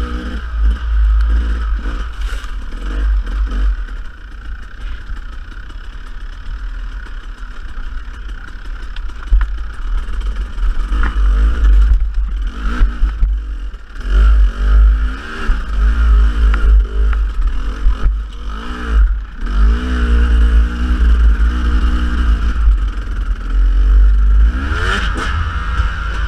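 Dirt bike engine being ridden, its revs rising and falling again and again with the throttle, with a few sharp knocks. A heavy wind rumble sits on the microphone throughout.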